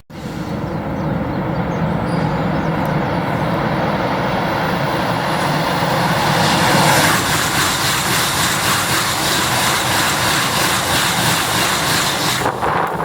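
Tohoku Shinkansen bullet train passing at high speed: a loud, steady rush that starts suddenly and turns brighter and hissier about halfway through, dropping briefly near the end.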